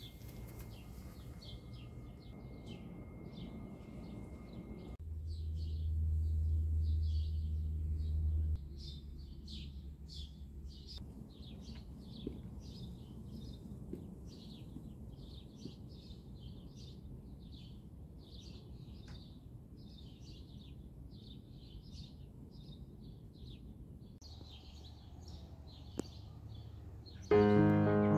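Small birds chirping, short high chirps repeated over and over, with a low steady rumble for a few seconds about five seconds in. Piano music comes in near the end and is the loudest sound.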